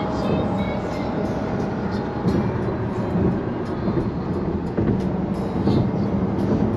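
Steady road and engine noise heard from inside a car's cabin while driving at highway speed.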